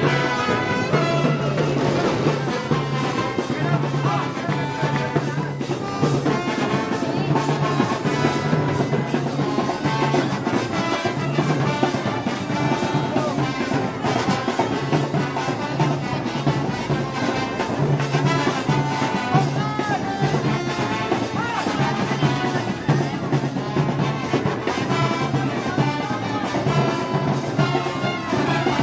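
Brass band playing festival march music, trumpets and trombones over drums and cymbals keeping a steady beat.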